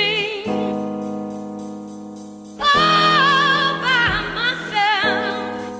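Music: a high voice singing with wide vibrato over held chords that swell and fade.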